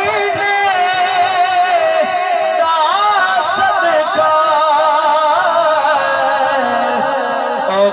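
A man's voice singing a naat, the Punjabi devotional praise of the Prophet, into a microphone over a loudspeaker. He draws out long, ornamented notes that waver and slide in pitch, with no instruments.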